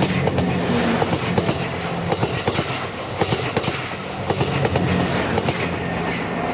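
JR West 87 series Twilight Express Mizukaze diesel-electric train running past at close range, its wheels clicking irregularly over the rail joints over a steady low hum.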